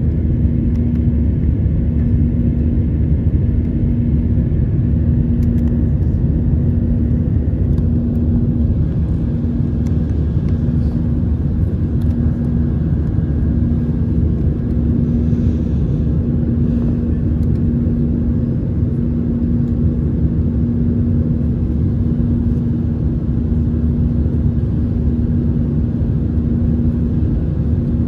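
Cabin noise of an Airbus A320 in the climb: a steady rumble of the engines and airflow, with a steady low hum.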